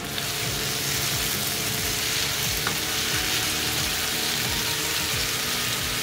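Cubed potatoes, capsicum and peas sizzling steadily in oil in a frying pan as they are stirred.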